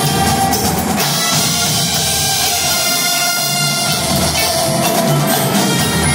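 College marching band playing: held brass chords over a drumline, with the front ensemble's marimbas and mallet percussion.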